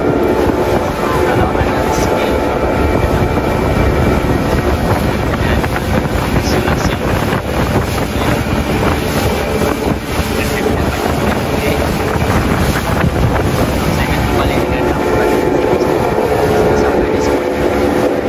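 Small fishing boat's motor running steadily while underway, with heavy wind noise on the microphone.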